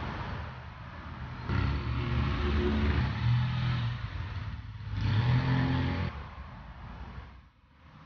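City road traffic: motor vehicles driving past with engines accelerating, louder in two stretches, from about a second and a half in and again about five seconds in, then fading away near the end.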